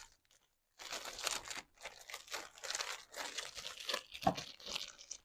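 Packaging crinkling and rustling in irregular bursts as it is handled during an unboxing, starting about a second in.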